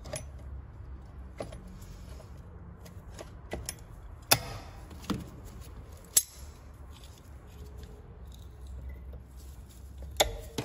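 Steel locking pliers clinking and clicking as they are handled and clamped onto a car mirror's metal screw: a few sharp metallic clicks, the loudest about four and six seconds in and another near the end, over a low steady hum.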